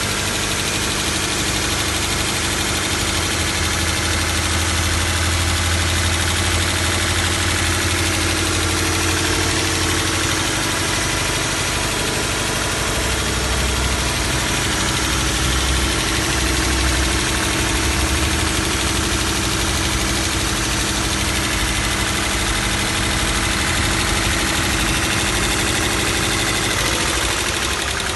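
2012 Toyota 86's 2.0-litre flat-four boxer engine running steadily at idle, with a rattle that the owner is unsure is normal.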